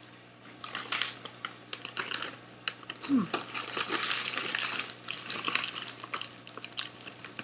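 Plastic candy packaging being handled: irregular crinkling and crackling with many small sharp clicks, starting about half a second in.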